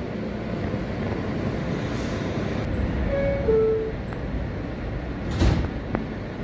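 New York City subway car door chime, two short descending tones, then the sliding doors shut with a knock about two seconds later, over the steady low rumble of the standing train.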